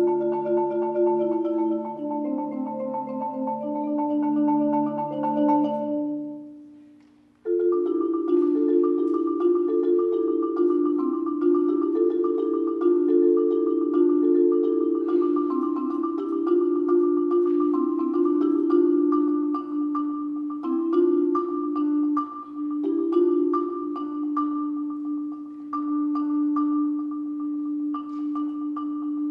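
Marimba playing. A passage rings away to a short pause about six and a half seconds in. About a second later a new section starts suddenly, with one high note kept sounding over a moving lower part.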